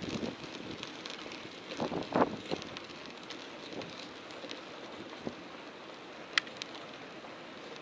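Wind rushing over the microphone and road noise from a moving bicycle, with a few louder knocks early and a single sharp click near the end.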